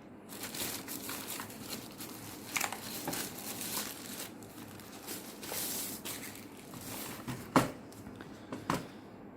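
Keyboard packaging crinkling and rustling as it is handled and pulled off, with two sharp clicks near the end.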